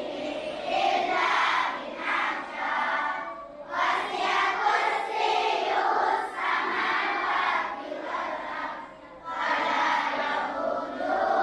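A group of primary-school children's voices chanting together in unison, in phrases of a few seconds with short breaks between them.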